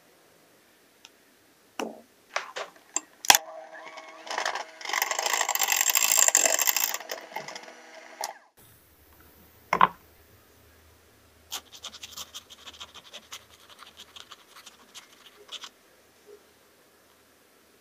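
Electric hand mixer whipping cream in a glass bowl: its motor and beaters run loudly for about four seconds, then cut off suddenly. Before it come a few light clicks and taps. Later comes a run of soft crackling ticks as a hole is poked in a baked cupcake in its paper liner.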